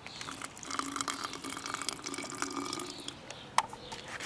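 Warm water poured onto yeast in a small container, splashing and trickling for about three seconds, then a single sharp knock a little after three and a half seconds.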